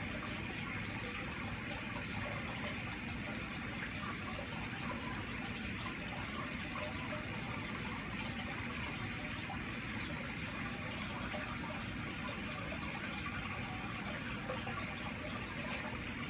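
Aquarium filter running: a steady flow of water splashing and trickling into the tank.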